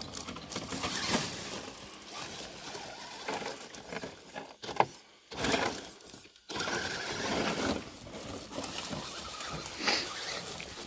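Dry leaf litter crunching and rustling under the tyres of an RGT Rock Hammer 18000 electric RC rock crawler as it crawls through the leaves, the noise dropping away twice briefly around the middle.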